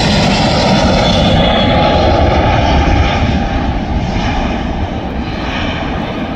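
Air Transat Airbus A321 jet engines at takeoff thrust as the airliner rotates, lifts off and climbs out: a loud, steady jet rumble that eases slightly over the last couple of seconds as it draws away.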